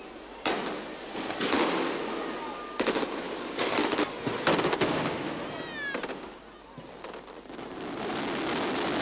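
Small festival cannons on a church facade firing off paper streamers (nzareddi) in an irregular string of sharp bangs for about six seconds, over a crowd din. A short falling whistle-like sound comes about halfway, and a steadier noisy din takes over near the end.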